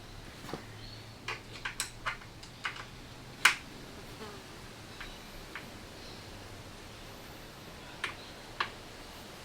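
Scattered light, sharp clicks and taps of tools and parts being handled during a mountain bike build, at uneven intervals, the loudest about three and a half seconds in, over a faint low hum.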